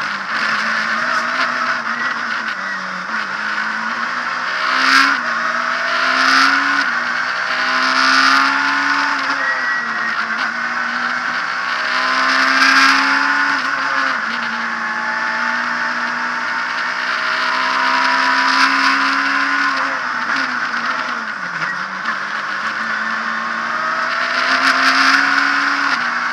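Abarth Punto S2000 rally car's naturally aspirated 2.0-litre four-cylinder heard from inside the cockpit at full race pace. The engine note climbs and drops again and again as the car accelerates hard and slows for corners, with a few short, louder bursts of noise over it.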